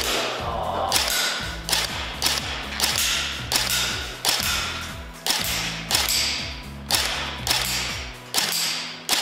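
HERA ARMS CQR electric airsoft rifle (ICS build with electric blowback and a MOSFET electronic trigger) firing about a dozen single shots, roughly one every 0.7 seconds, in a steady semi-auto rhythm.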